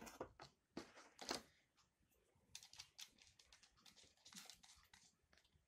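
Faint small clicks and light rattles of hands working the nose of a Bort BCT-140 rotary tool, changing the attachment in its collet with the motor off. A few isolated clicks come first, then a quicker run of clicks in the middle.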